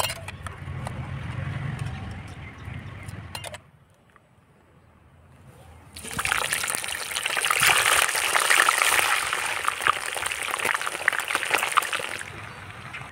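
Chicken pieces dropping into hot mustard oil and deep-frying: a loud, dense sizzle and crackle that begins about halfway through and runs for about six seconds. Before it, a few metal clinks of a slotted spoon in a pressure cooker as the steamed chicken is lifted out.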